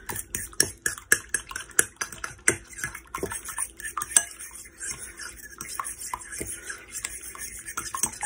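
Metal fork beating raw eggs in a bowl, the tines clicking against the sides of the dish: spaced sharp clicks at first, then a faster, steadier clatter in the second half.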